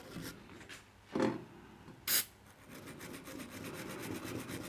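Stiff brush scrubbing the metal chassis of a valve radio, working at brown gunk with rapid back-and-forth strokes that run on as a steady scratching in the second half. Two short, louder sounds stand out, about one and two seconds in.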